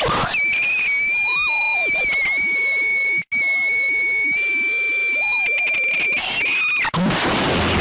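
Electronic emergency alert alarm tone: a steady high-pitched tone with buzzy overtones over lower wavering tones, cut off suddenly for a moment about a third of the way in. Near the end it gives way to a loud noisy rush.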